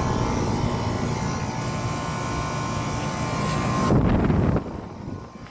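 Outdoor air-conditioner condensing unit running, its scroll compressor loud and harsh ("angry") over the steady hum of the condenser fan. About four seconds in there is a brief, louder low rumble, then the level drops.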